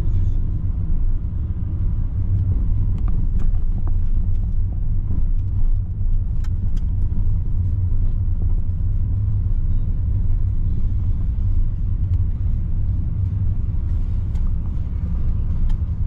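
Car on the move: a steady low rumble of engine and road noise, with scattered faint clicks and knocks.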